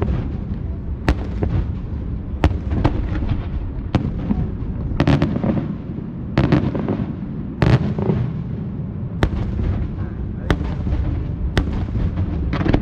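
Aerial fireworks bursting: about a dozen sharp bangs at irregular intervals over a continuous low rumble of further explosions and their echoes.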